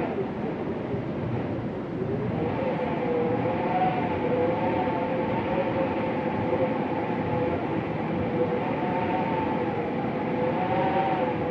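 Winter wind moaning over a steady rushing hiss, its howl made of a few tones that waver slowly up and down in pitch. The howl fades near the start and comes back about two seconds in.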